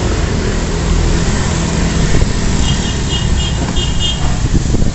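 Wet city street ambience: a motor vehicle engine running close by over a steady hiss. In the middle comes a quick run of short high-pitched pips.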